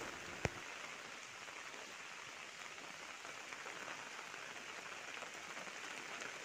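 Faint, steady hiss of rain falling on a wet surface, with a single sharp click about half a second in.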